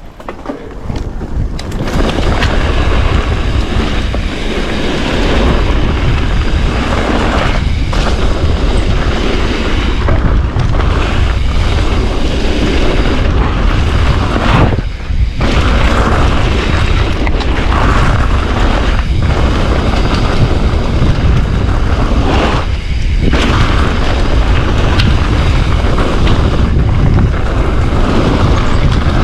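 Wind buffeting the microphone and mountain bike tyres rolling over a gravel trail at speed: a loud, continuous rumble that builds over the first two seconds, with a few brief lulls.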